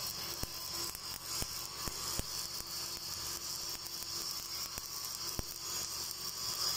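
Stick welding arc with a 7018 electrode burning steadily on a steel pipe joint: a continuous crackling hiss with a few sharp pops from spatter, about five in all.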